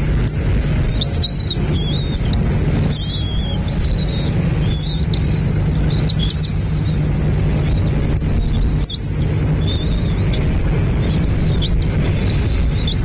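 Birds calling in a run of high, thin chirps, several notes every second, over a steady low rumble.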